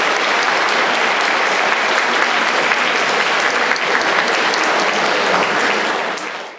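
Audience applauding steadily; the applause fades out at the very end.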